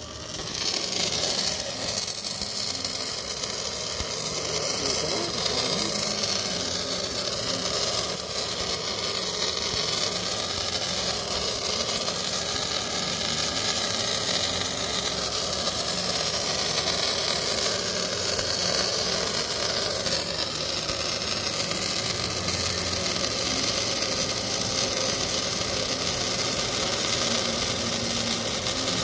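Electric arc welding laying a weld pass on a multi-layer weld: a steady, unbroken hiss of the arc that starts about a second in.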